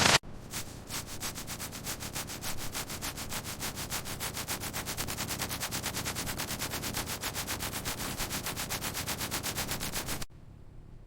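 Rhythmic back-and-forth sanding strokes, about five a second, as of hand-sanding a car body panel; the strokes stop abruptly about ten seconds in.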